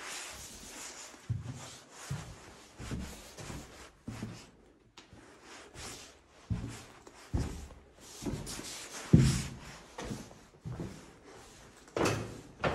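Footsteps on a bare floor, dull thuds about once a second with the heaviest about nine seconds in, over a faint rustle of movement.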